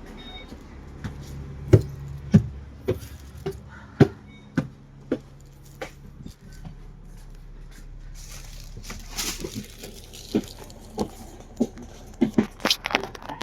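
Low hum of a bus engine at idle, with a run of sharp knocks or clicks about two a second, then scattered knocks and a quick cluster near the end.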